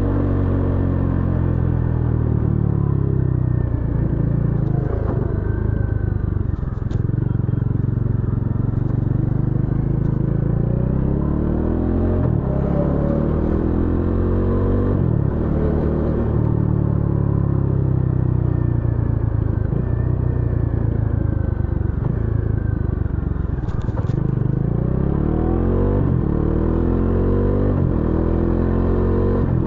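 Bajaj Dominar 400 motorcycle's single-cylinder engine and exhaust under way, the revs climbing and dropping back again and again as the rider accelerates, shifts and rolls off the throttle.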